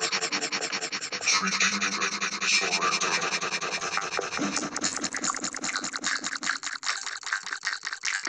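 Rapid, rhythmic scratching and rasping noise, several strokes a second.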